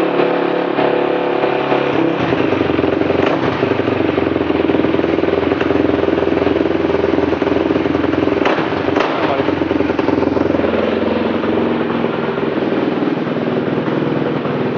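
Suzuki LT-R450 race quad's single-cylinder four-stroke engine running steadily just after being started, with two brief sharper blips a little past the middle.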